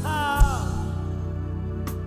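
Gospel worship music. A sung note falls away in the first half second over held keyboard chords and bass, with a drum hit about half a second in.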